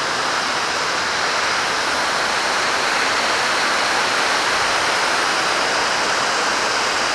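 Small waterfall and its stream rushing steadily, an even hiss of falling water.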